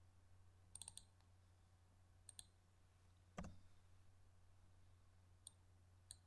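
Faint computer mouse clicks, several in quick succession about a second in and more scattered later, with one duller, louder knock about three and a half seconds in, over a low steady hum.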